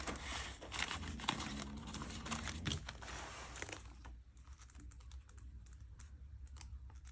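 Plastic zipper cash envelope and paper bills rustling and crinkling with quick small clicks as money is tucked into a budget binder. After about four seconds it goes quieter, with only faint ticks as a pen writes on a paper ledger.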